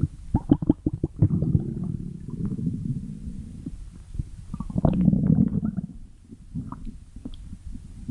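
A blue fox's stomach growling: low bubbling gurgles with small clicks and pops, loudest in two bouts, about a second in and again around five seconds in.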